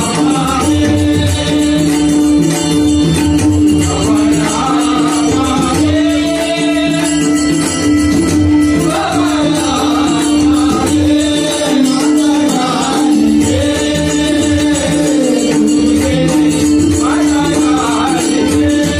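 Marathi devotional bhajan singing in phrases with pauses between them, over a steady held harmonium note. A drum and jingling percussion keep a running beat.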